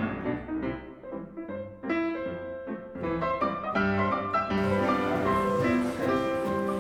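Grand piano played, a run of melody notes over chords. A steady hiss joins the piano about two-thirds of the way through.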